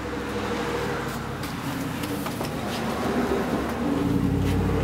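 A steady engine-like hum with a few held tones, swelling louder and deeper about four seconds in.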